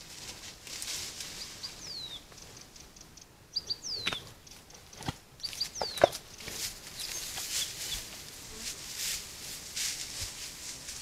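A small bird calling: high whistles that slide quickly downward, three of them about two seconds apart, with short high chips in between. Under them, rustling and crackling of grass and brush as a moose walks through, with a sharp click about six seconds in as the loudest sound.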